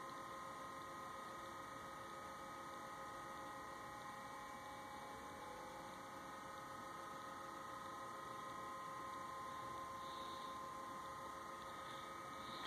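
Faint steady electrical hum with several thin, steady whining tones from electronic equipment.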